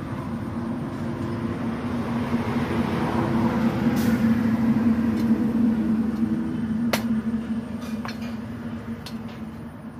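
A heavy vehicle passing on the road: steady engine and road noise with a low hum that swells to its loudest midway and fades away. A few light knocks sound over it in the second half.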